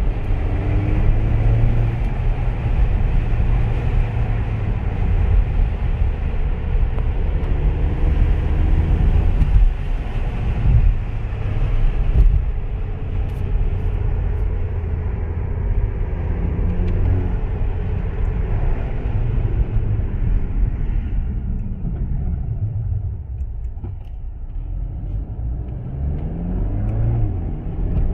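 The turbocharged 2.0-litre four-cylinder engine of a 2019 VW Jetta GLI, fitted with a catted downpipe on the stock exhaust, heard from inside the cabin during an acceleration pull. The engine note climbs and stays loud for most of the time, eases off for a few seconds near the end, then starts rising in pitch again.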